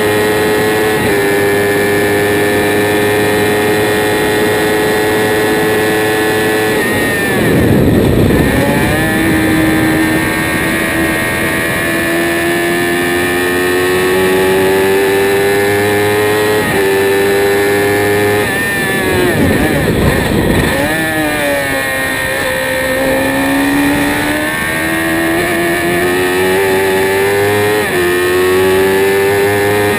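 Spire GT3 race car engine running hard at high revs, heard from the open cockpit, with upshifts that drop the pitch in steps. Twice, about 8 and 20 seconds in, the revs fall away in a burst of noise as the car brakes and shifts down for a corner, then climb steadily again as it accelerates out.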